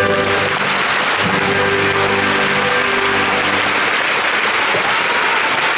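Audience applause breaking out over the orchestra's last held chord, which fades out about three and a half seconds in, leaving applause alone.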